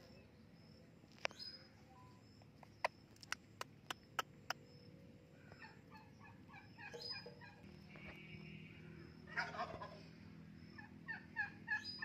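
Rose-ringed parakeet chattering in bursts of quick, soft notes, with a few sharp clicks in the first few seconds.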